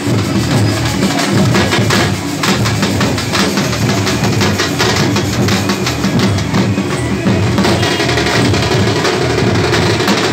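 Loud music driven by fast, dense drumming.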